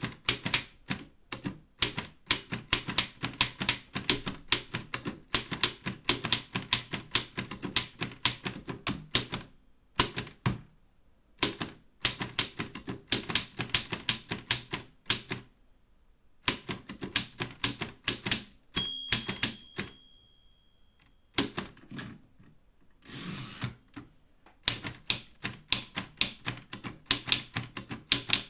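Erika 5 manual typewriter being typed on in quick runs of key strikes with brief pauses. About two-thirds through, the margin bell rings and lingers. About two seconds later a short noisy sweep follows: the carriage return.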